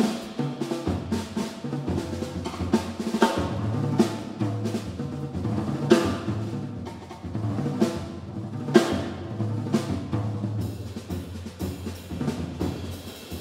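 Yamaha jazz drum kit played with sticks in a busy passage of snare and tom strikes and cymbal hits, with loud accents about six and nine seconds in. Plucked upright bass notes run underneath.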